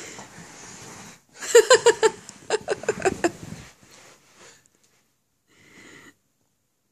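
A person laughing: a quick run of short, pitched laugh pulses starting about a second and a half in and lasting about two seconds.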